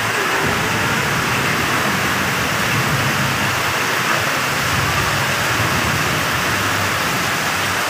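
Heavy rain pouring and floodwater rushing over a road, a loud steady hiss. Vehicles drive through the flooded road, their engines a low rumble under the rain in the middle stretch.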